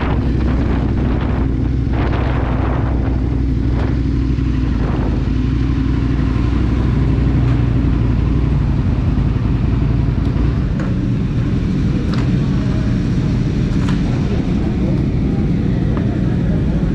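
Aprilia Tuono 1000 V-twin engine running steadily on a track with wind noise rushing past. The engine note shifts lower about ten seconds in.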